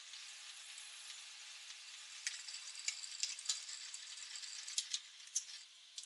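Drill press with a step bit drilling into the wooden handle stub left in a steel hammerhead, heard faintly as a thin hiss, with a handful of light clicks and rattles in the second half.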